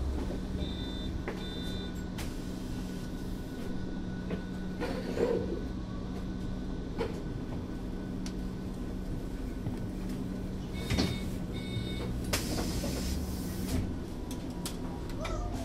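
Berkhof Premier AT 18 articulated trolleybus standing at a stop with a steady low hum. Two short high beeps come about a second in, and a longer run of beeps about eleven seconds in. A burst of hiss follows at about twelve seconds and lasts a second and a half.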